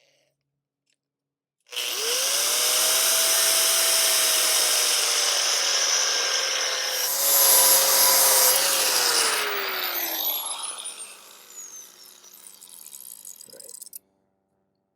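Electric angle grinder started up and running with a steady whine, louder and rougher for a couple of seconds midway as it works the steel. It is then switched off and winds down with a long falling whine, and the sound stops abruptly near the end.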